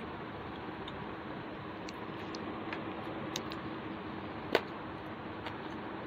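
Fingers mixing rice and greens on a banana leaf: a few small soft clicks over a steady background hiss, with one sharp click about four and a half seconds in.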